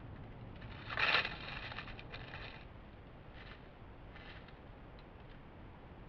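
A pine marten climbing on a small tree, its claws scraping and rustling the bark and twigs: a scratchy crackling burst about a second in, followed by a couple of shorter, fainter scratches.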